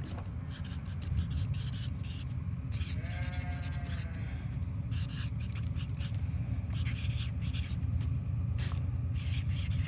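Felt-tip marker writing on cardboard: a run of short scratchy strokes as letters are written. A steady low rumble sits underneath, and a brief wavering pitched sound comes about three seconds in.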